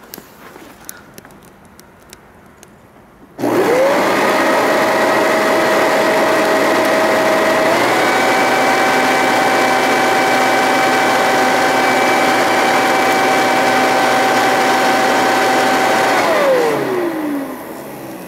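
An electric motor starts about three seconds in, spins up quickly to a steady whine, steps up in pitch partway through, and after about thirteen seconds is switched off and winds down with falling pitch.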